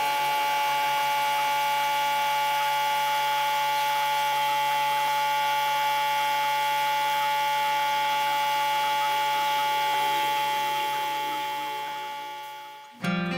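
A steady drone of several held tones over a light hiss, most likely a sustained synth pad in the background music, fading out over the last few seconds.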